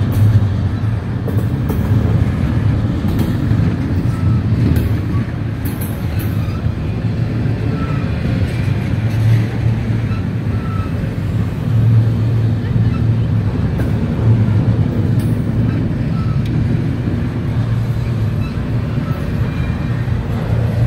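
Double-stack container train rolling past at close range: a steady, even rumble of the well cars' steel wheels on the rails.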